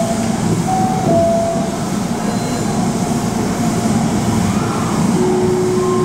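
A Hankyu train's electric horn (densha denteki) starts about five seconds in as a steady, single-pitched tone, over the hum of the train standing at an underground platform. Brief electronic tones sound in the first two seconds.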